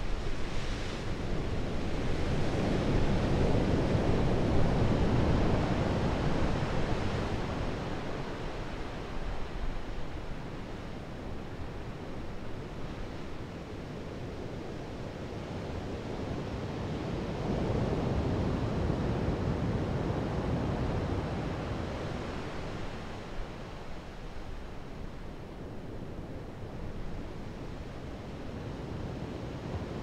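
Ocean surf breaking over rocks and washing up the beach. A wave bursts against a rock at the start, and the rush of the surf then swells and fades twice, loudest a few seconds in and again a little past halfway.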